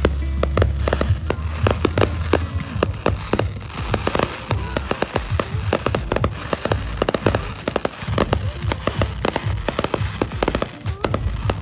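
Fireworks going off: a dense, irregular string of sharp pops and crackles. A low hum sits under the first two and a half seconds, then stops.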